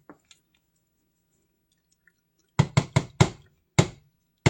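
A metal cooking utensil knocking sharply against a pot, six quick knocks in under two seconds after a quiet start.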